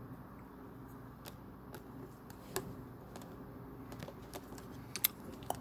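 Small plastic Lego pieces clicking and tapping as they are handled and pressed together, with scattered light clicks and a few sharper ones about halfway through and near the end.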